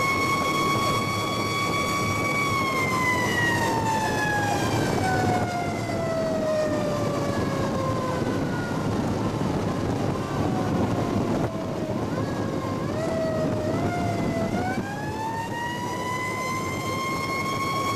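Tiller ladder truck's Federal Signal siren heard from inside the cab over steady engine and road noise. It holds a steady high wail, winds down slowly over several seconds and fades, then climbs back up to full pitch near the end.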